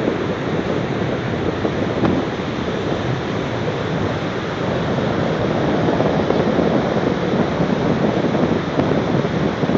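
Surf breaking and washing up a flat sandy beach, mixed with wind buffeting the microphone: a steady rushing noise without pauses.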